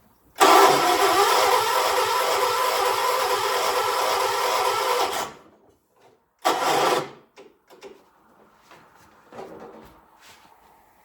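1976 John Deere 300 garden tractor's starter cranking the engine over for about five seconds with a steady pulsing rhythm, without it firing, then a second brief crank of under a second. The engine is hard-starting and does not catch.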